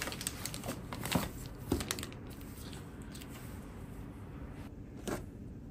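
Plastic packaging crinkling and rustling as a pack of raw chicken breast is handled on a stainless steel counter. There are several sharp rustles in the first two seconds, then quieter handling and one more rustle near the end.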